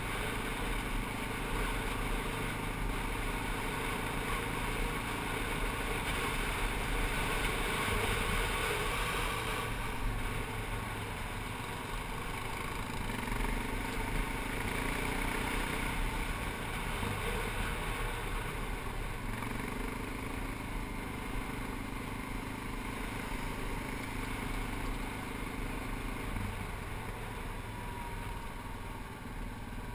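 ATV engine running under way on a rough dirt trail, its pitch rising and falling slowly with the throttle, over a steady low rumble.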